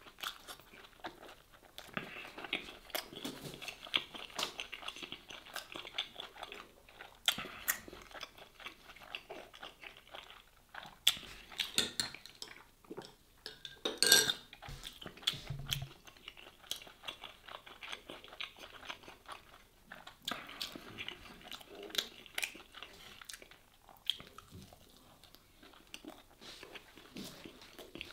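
Close-miked chewing and crunching of a toasted sujuk and döner sandwich, with many small crackling bites. One louder knock comes about halfway through.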